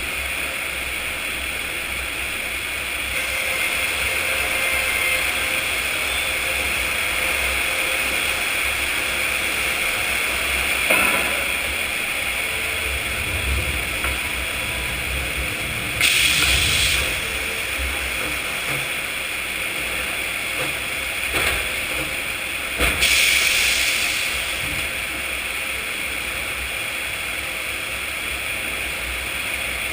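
Sawmill machinery running steadily with a high whine and a low rumble, broken three times by a louder noisy burst of about a second, as timber is cut or handled.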